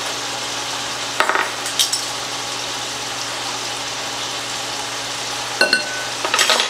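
Chicken breasts sizzling steadily in coconut oil in a frying pan, with a few sharp clinks of a metal measuring spoon against a glass bowl and cutting board; one clink, near the end, rings briefly.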